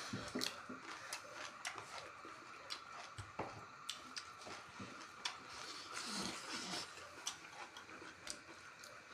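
People eating chicken curry with Naga king chilli: chewing, lip smacks and small mouth and utensil clicks scattered throughout, over a faint steady background tone.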